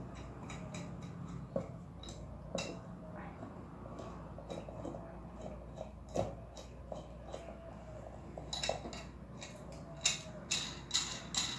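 Small plastic clicks and rattles of a disposable plastic vaginal speculum being closed and drawn out by hand, scattered at first and coming thick and fast in a quick cluster near the end.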